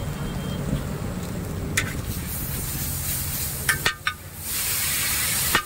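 Egg frying on a hot flat iron tawa while a metal spatula scrapes and taps the pan a few times. About four and a half seconds in, a loud sizzling hiss rises as liquid from a squeeze bottle hits the hot pan, then cuts off sharply.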